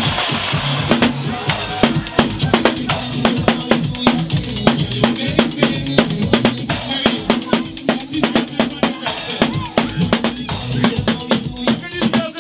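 Live drum kit played in a fast, busy rhythm, with snare, bass drum and cymbal hits over backing music.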